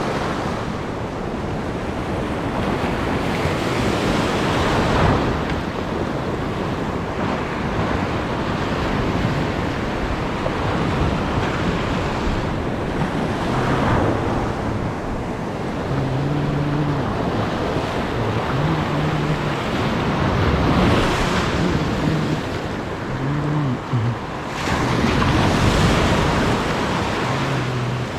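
Sea waves washing and surging over a shallow reef, with wind buffeting the microphone; the wash swells louder several times. In the second half a faint low hum comes and goes.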